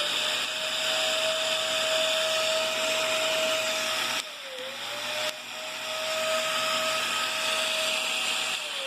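Riccar Brilliance upright vacuum cleaner running with a steady motor whine and rushing air. About four seconds in it drops in level and dips in pitch for about a second, then picks back up. Near the end its pitch falls as the motor winds down.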